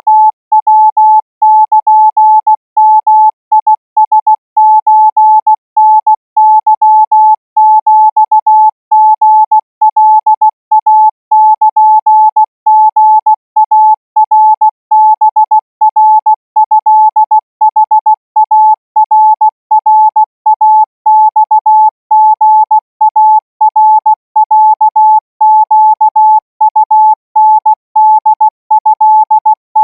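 Morse code practice signal at 20 words per minute: a single steady beep keyed on and off in short dots and longer dashes, in a continuous stream of characters.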